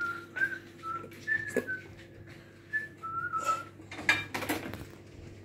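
Someone whistling a short, casual tune of separate high notes that step up and down. A couple of light kitchen clatters come near the end.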